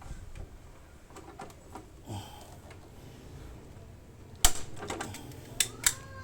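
Light scattered clicks and knocks of hard plastic being handled, with one sharp snap about four and a half seconds in and two more near the end: hands working on motorcycle fairing panels and their clips.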